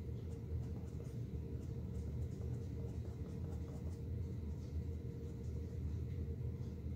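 Steady low room rumble with a faint steady hum, over which a small blender brush makes faint soft scratchy taps as it dabs acrylic paint onto a canvas panel.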